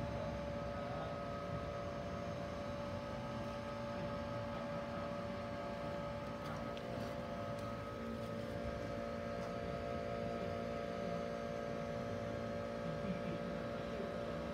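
Steady electrical hum of a Lisbon Remodelado tramcar standing on its tracks, several unchanging tones over a low street rumble, with a few faint clicks about halfway through.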